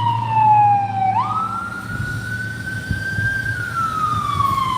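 Emergency vehicle siren in a slow wail: the tone falls, jumps quickly back up about a second in, climbs slowly, then falls again. A steady low hum runs underneath.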